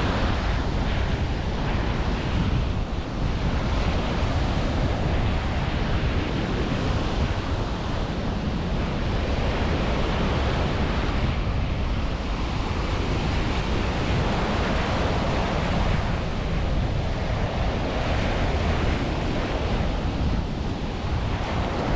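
Ocean surf washing onto a sandy beach, a steady rush of breaking waves that swells and eases every few seconds, with wind rumbling on the microphone.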